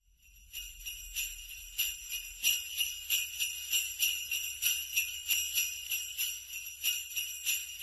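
Sleigh bells jingling, shaken in a steady rhythm of about two shakes a second. They fade in at the start.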